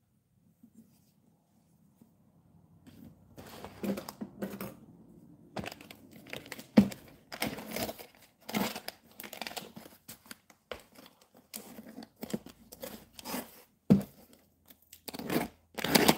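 Clear plastic wrapping on a cardboard package being crinkled and torn open, in irregular rustles and rips that begin about three seconds in.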